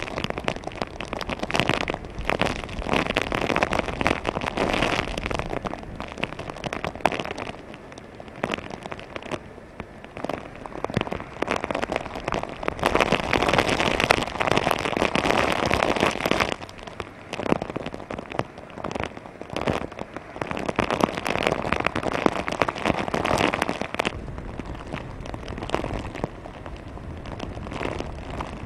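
Heavy typhoon rain driven by strong wind: a dense, crackling hiss of rain that swells and eases in long gusts every few seconds.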